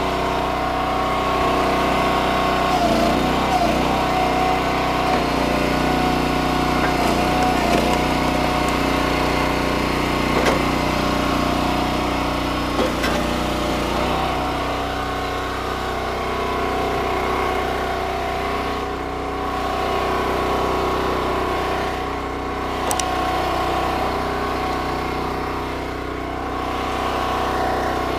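Gas engine of an EastonMade hydraulic wood splitter running steadily at working speed. Its note wavers and labours through the first half as the ram pushes through logs, with a few sharp knocks of wood.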